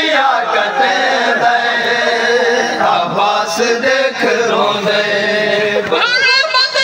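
Men chanting a Saraiki noha, a Shia mourning lament, in long drawn-out sung lines that bend and glide in pitch.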